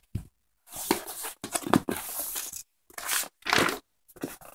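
Board-game contents being handled: cardboard sheets and a folded cardboard game board rustling and scraping in a series of short, irregular bursts with a few light knocks.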